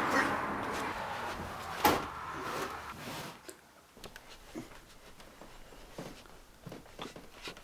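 A couch being shoved, with a noisy scuffing and one sharp knock about two seconds in. Then, more quietly, small rustles and taps as an arm reaches down into the gap between the couch and a wooden post.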